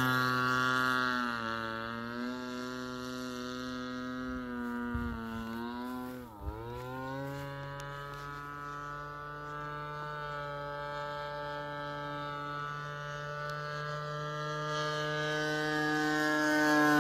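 Single-cylinder two-stroke gas engine and propeller of a radio-controlled model airplane running steadily in flight, louder at the start and end and fainter in between. About six seconds in, the pitch dips sharply and comes straight back up.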